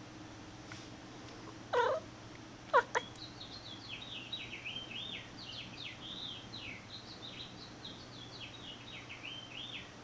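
House cat giving two short, loud, bark-like calls about two and three seconds in, then a long run of quick, high, falling chirps.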